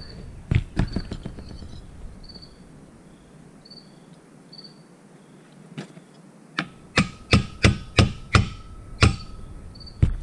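Small hammer tapping a chain brake handle onto a chainsaw case to drive it onto its pin: two quick taps near the start, a single tap around six seconds in, then a run of about six sharp taps in the last three seconds.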